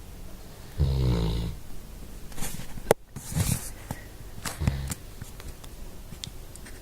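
Sleeping dog snoring: one snore about a second in, lasting about half a second, then a few short clicks and small noises, with a single sharp click, the loudest sound, about three seconds in.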